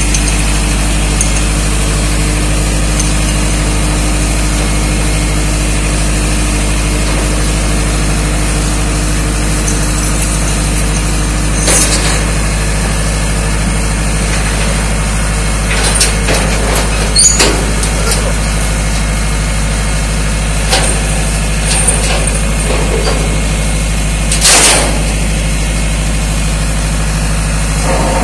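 Heavy truck engine running steadily while building materials are unloaded by crane, with a few sharp metallic clanks and knocks, a cluster past the middle and the loudest a few seconds before the end.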